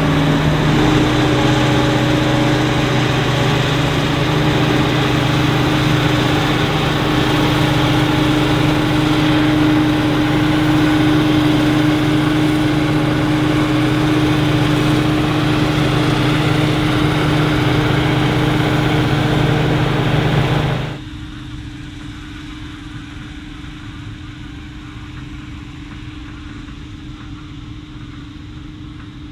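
Heavy farm machinery running steadily: a loud engine with a constant hum. About two-thirds of the way through it cuts off abruptly to a quieter, more distant engine sound.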